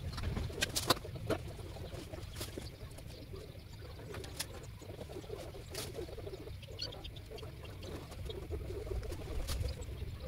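Outdoor yard ambience: scattered light clicks and taps over a low rumble, with a few faint bird chirps about seven seconds in.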